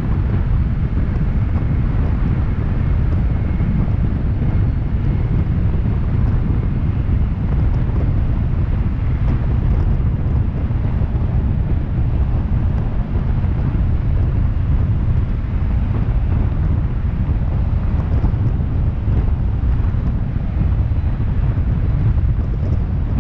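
Steady low rumble of a car driving through a road tunnel: tyre and road noise mixed with wind buffeting the outside-mounted microphone.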